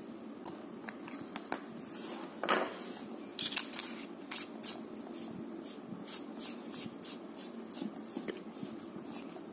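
Sofirn IF22A aluminium flashlight handled and its head unscrewed by hand. A scrape about two and a half seconds in, then a run of small sharp metallic clicks, about three a second, which stops shortly before the end.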